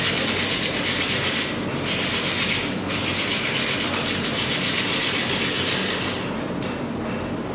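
Rasping, scraping noise of the blacksmith working the metal poker, in long stretches with short breaks about one and a half seconds in, near three seconds, and for the last second or so.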